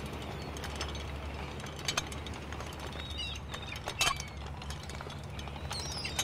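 Water splashing and dripping from a round lift net as it is hauled up out of the sea, over a steady low hum. A few short, high bird chirps come about three seconds in and near the end.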